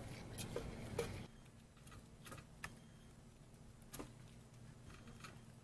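A squirrel nibbling crumbs on a windowsill: faint, scattered little clicks and taps from its teeth and claws, with a low hum that stops about a second in.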